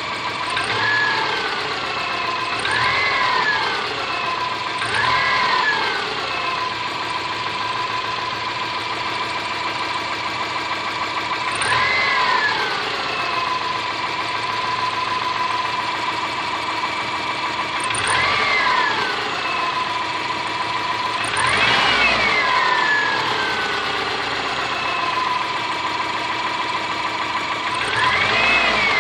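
Subaru Forester's EJ25 2.5-litre flat-four engine idling and being revved briefly about seven times, each rev rising and falling back to idle. The engine has a knock.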